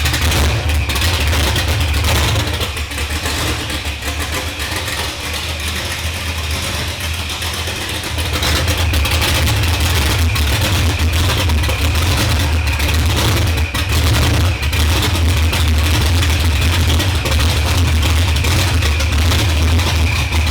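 C5 Corvette's freshly built V8 running on its first start-up, a steady low rumble that grows louder about eight seconds in.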